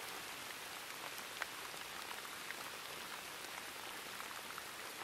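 Steady rain: an even hiss with scattered small drop ticks, one a little louder about a second and a half in.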